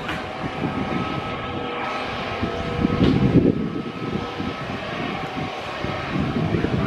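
Twin-engine jet airliner's engines running as it rolls slowly along the runway: a steady low rumble with high whining tones on top.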